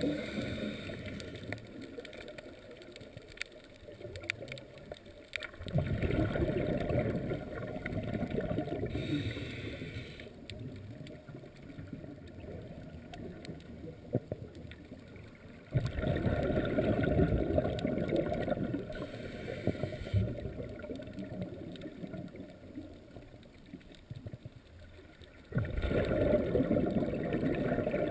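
A scuba diver's regulator exhaling, heard underwater: a burst of low bubbling comes every several seconds, starting suddenly and fading, with quieter gaps between breaths.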